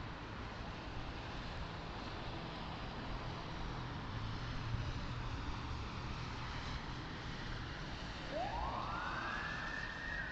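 Low, steady traffic and engine hum heard from inside a car. About eight seconds in, an emergency-vehicle siren wails up in pitch, holds, then begins to fall.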